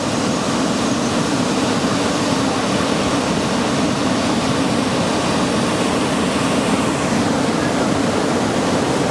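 Waterfall's falling water rushing steadily, a loud, even roar of white water.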